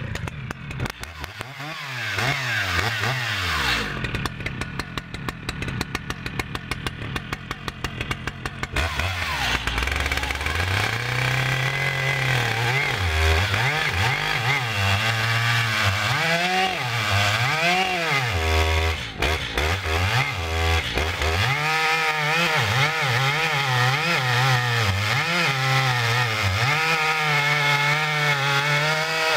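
New Stihl MS 881 Magnum two-stroke chainsaw (121.6 cc) being run in for break-in. It revs up and down at first, drops to a low idle with an even beat for a few seconds, then is revved up and down over and over, running mostly high near the end.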